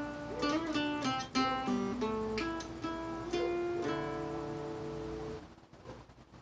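Acoustic guitar picking a short melodic riff note by note, ending on a held chord that rings and fades away about five and a half seconds in.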